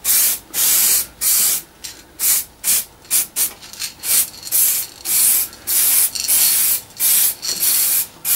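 Aerosol spray can of acrylic car paint hissing in short, repeated bursts, about two a second, as black paint is laid on in thin passes to avoid runs.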